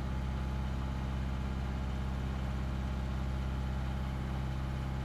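Sailboat's engine running at a steady speed while motoring, a constant low drone.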